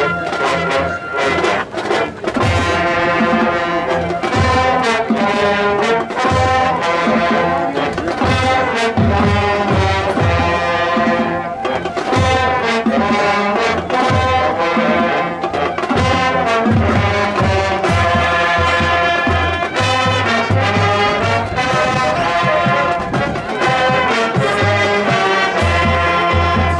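High school marching band playing, brass-led, over a steady drum beat.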